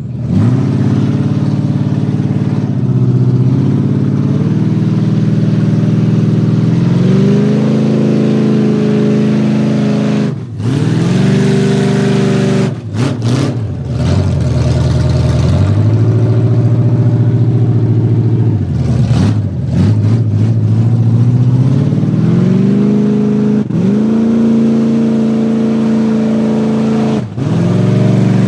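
GMC mud truck's engine revving hard as it churns through deep muddy water: the pitch climbs, drops suddenly and climbs again several times.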